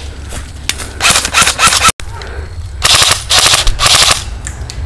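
Airsoft guns firing rapid full-auto bursts: two long bursts of about a second each, the second from a DPMS M4 airsoft carbine.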